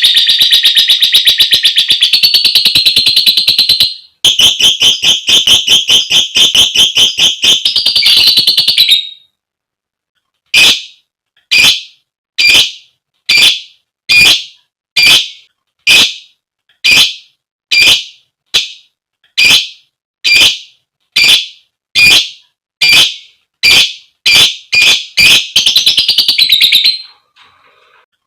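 Female lovebird giving a long, fast, shrill chattering trill for about nine seconds. After a short pause come single sharp, piercing calls about once a second, coming closer together near the end and briefly running into chatter again.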